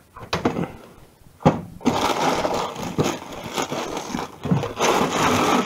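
Rummaging in a freezer: a few knocks of the drawer and frozen packets, then from about two seconds in a long steady rustling of plastic bags of frozen vegetables being handled.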